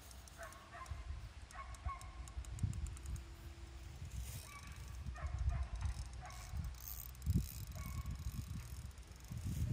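Fishing reel ratcheting and clicking as a hooked carp is played on a hard-bent rod, with low thumps and rustle from the phone being handled.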